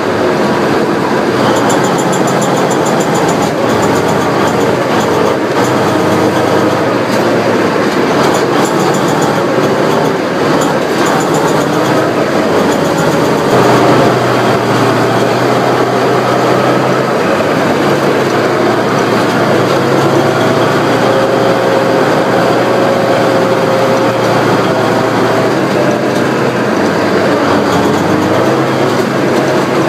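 A tank on the move, its engine and tracks running loud and steady. A whine wavers in pitch over the noise, and the low engine note shifts a few times, around the middle and again near the end.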